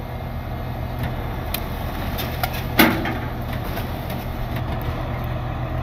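Tow truck engine idling steadily, with a single sharp knock about three seconds in.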